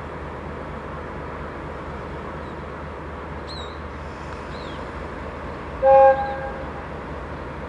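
A train horn sounds one short two-tone blast about six seconds in, over steady background noise.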